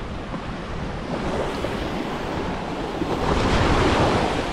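Surf washing on a sandy beach, with wind buffeting the microphone in a low rumble. The noise builds from about a second in and is loudest a little past three seconds in.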